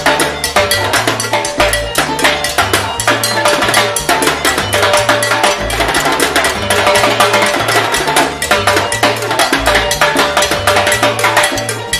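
Timbales solo in a live salsa band: rapid stick strokes on the metal-shelled timbales and a mounted cowbell, over the band's bass line.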